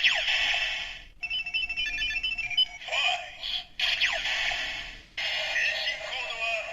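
Electronic sound effects from a Kamen Rider Faiz Ridewatch toy's small speaker: bursts of chiming, sweeping tones and a run of short beeps, broken by brief gaps.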